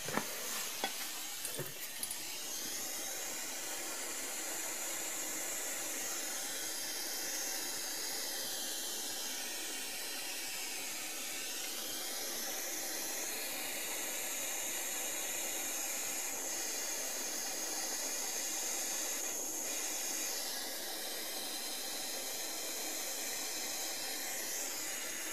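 Blowtorch flame hissing steadily as it heats a copper pipe assembly to melt solder into the joints.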